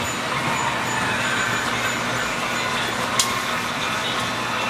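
Steady whirring of a toy train layout in operation, with a low electrical hum under it, from trains and motor-driven accessories such as the Ferris wheel running. A single sharp click sounds about three seconds in.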